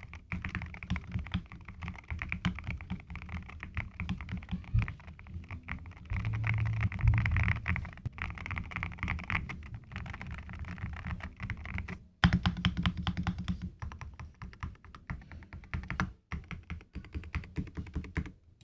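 Typing on an Akko MU02 wooden-case mechanical keyboard with Akko Rosewood switches on an FR4 plate: quick, irregular runs of keystrokes, a heavier patch about six to eight seconds in. The typing breaks off sharply about twelve seconds in and starts again straight away.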